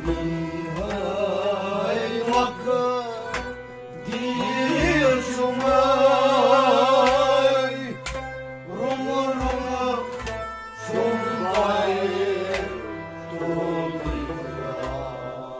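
A man singing a Kashmiri Sufi devotional song, his voice wavering on long held notes, to a harmonium playing steady sustained chords and a hand drum keeping a regular beat.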